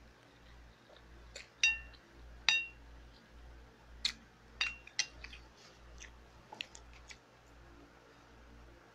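A metal spoon clinking against a dish about ten times, in short ringing clinks; the two sharpest come about two seconds in.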